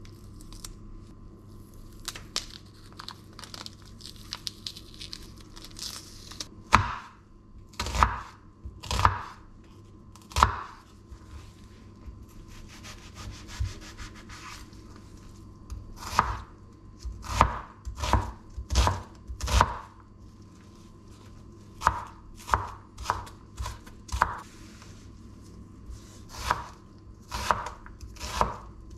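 Chef's knife chopping an onion on a wooden cutting board: sharp single strikes of the blade on the board in short runs of a few strokes with pauses between. Quieter rustling of the onion being peeled comes first, for about six seconds.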